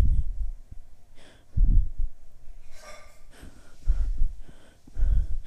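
A person breathing heavily close to the microphone: several low puffs of breath about a second apart, with a short hiss about three seconds in.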